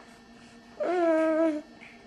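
Infant of about six and a half months making one short, steady whining hum with his fingers in his mouth, starting about a second in and lasting under a second.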